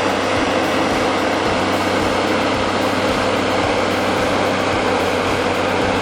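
Heavy excavator's diesel engine running steadily under load, a constant low hum with an even mechanical noise over it.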